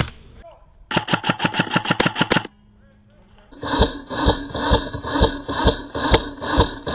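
Airsoft electric gun firing a full-auto burst of about fifteen shots in a second and a half, starting about a second in. From about halfway there is a slower, even series of pulses, about two a second, with a ringing tone, and a single sharp crack near the end.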